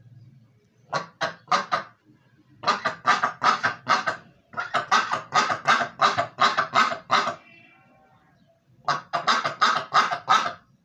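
Pekin duck quacking in quick runs of short, loud quacks, about four a second, in four bouts with brief pauses between them.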